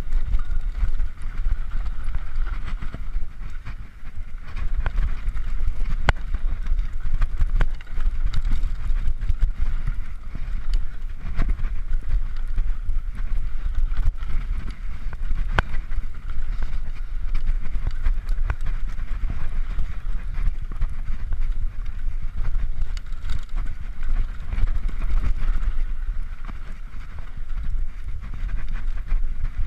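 Mountain bike rattling over a bumpy dirt trail, with irregular sharp knocks and clatter from the frame and components and tyre noise on loose dirt. Heavy wind rumble on the microphone runs underneath.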